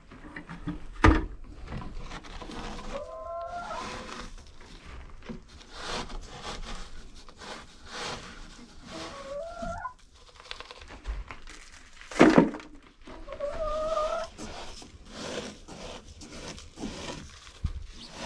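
Plastic cat litter scoop scraping and sifting through Sweet PDZ granules on a wooden poop board, with two sharp knocks, one about a second in and one about two-thirds of the way through. Hens call with drawn-out, rising notes three times.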